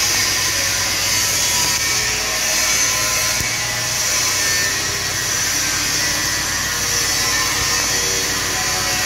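Stick-welding arc crackling and hissing steadily on thin-walled steel tubing, as the electrode fills a burn-through hole.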